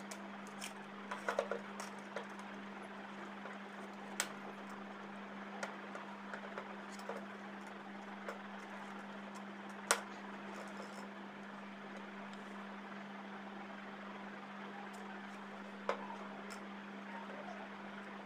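Scattered sharp plastic clicks and taps from a phone tripod's pan head and phone holder being handled and adjusted, the loudest about ten seconds in. A steady low hum runs underneath.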